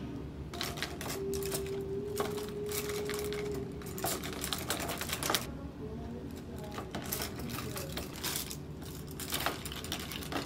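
Wooden-handled makeup brushes and a toothbrush clattering against the rim and sides of a clear plastic tub as they are dropped in and worked around in water: a run of irregular clicks and taps.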